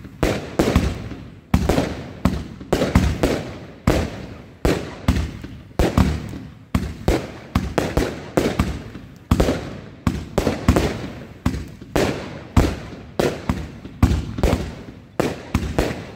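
A Night Nurse Neon 25-shot, 30 mm fireworks battery firing in a steady series of sharp bangs, about two a second, each followed by a short crackling tail.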